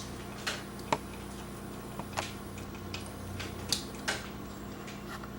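Scattered light clicks and taps of a plastic ribbon-cable connector being handled and pressed onto a floppy drive's pin header, over a steady low hum.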